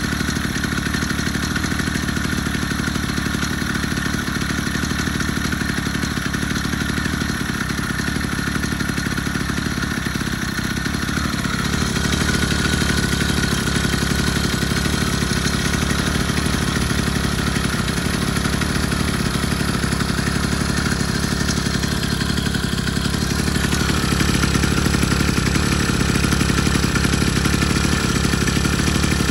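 Two-stroke bolt-on bicycle engine running steadily. It gets a little louder about twelve seconds in and again about twenty-four seconds in.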